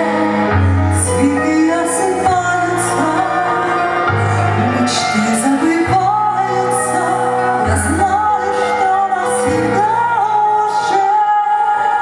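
A woman singing into a handheld microphone over instrumental accompaniment with sustained bass notes; she holds long, wavering notes.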